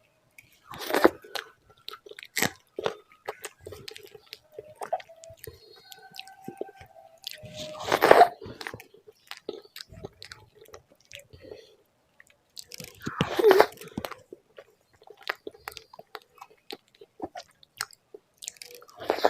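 Close-miked mouth sounds of a person eating rice and mashed bharta: chewing with many small wet clicks and smacks, and three louder bites about a second in, around eight seconds in and around thirteen seconds in.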